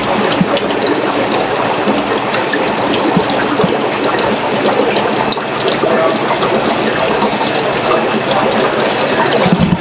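Steady rush and splash of running water from aquarium filters and pumps, with small scattered drips and ticks.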